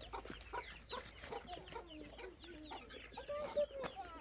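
A flock of chickens clucking as they are fed seed, many short calls overlapping, with a few sharp clicks among them, the loudest about three and a half seconds in.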